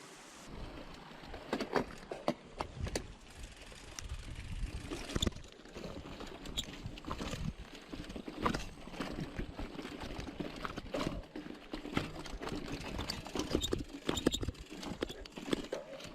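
Mountain bike rolling over a rough, rocky trail: a running rumble with irregular knocks and rattles as the wheels hit stones and bumps.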